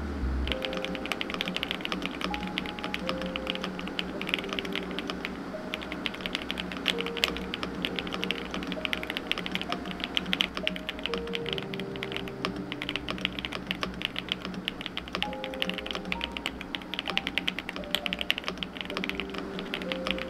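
Fast, continuous typing on an RK S98 mechanical keyboard with linear Viridian switches, starting about half a second in. Background music plays underneath.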